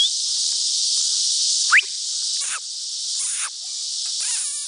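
Steady high insect chorus, with one short rising squeal a little under two seconds in and a few brief scuffing sounds after it.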